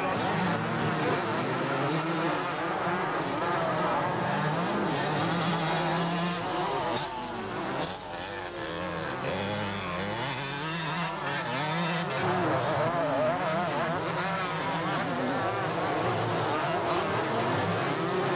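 125cc two-stroke motocross bikes racing, their engines revving up and down through the corners with the pitch rising and falling constantly. The sound briefly drops away about eight seconds in, then builds again as the bikes come closer.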